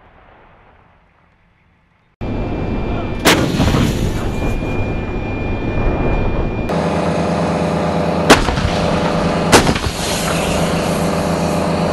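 M109 Paladin self-propelled howitzers firing: three sharp cannon blasts, the first a little over three seconds in and two more close together near the end. A loud, steady diesel engine rumble runs underneath, and the opening two seconds are only faint noise.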